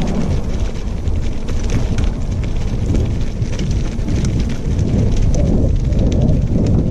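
Wind rumbling on the microphone of a body-worn camera moving along a gravel trail, over a continuous fine crackle of gravel. The rumble swells a little towards the end.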